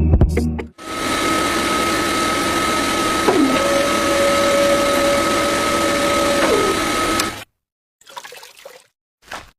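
Small motor-driven water pump running with a steady whine over rushing, splashing water. A second motor tone winds down near the end, and the sound then cuts off suddenly.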